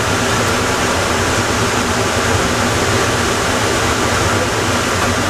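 Plane Train automated people mover running steadily, a constant rumble and hiss with faint steady hum tones and no change in level.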